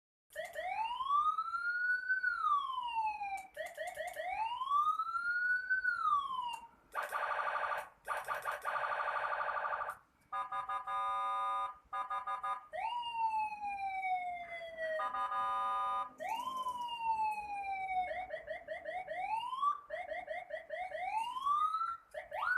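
Senken electronic siren module sounding through its speaker and cycling through its tones. First comes a slow rising-and-falling wail twice, then a harsh steady buzzing horn tone for about three seconds, then a stepped pulsing tone. Long falling sweeps follow, and the end is quick repeated rising whoops.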